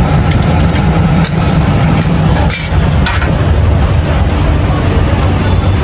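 A loud, steady low rumble like running engines, with a few sharp clicks and taps scattered through it.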